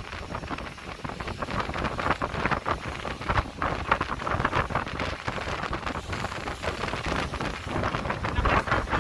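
Gusty wind buffeting the microphone on the deck of a moving cruise boat, over the steady rush of the boat's wake and engine.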